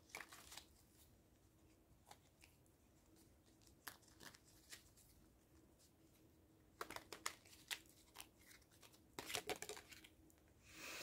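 Faint rustles and taps of an oracle card deck being handled and shuffled, in short scattered bursts with clusters about seven and nine seconds in.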